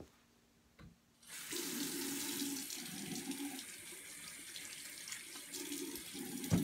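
Bathroom sink tap turned on about a second in, then water running steadily into the basin while hands are held under the stream.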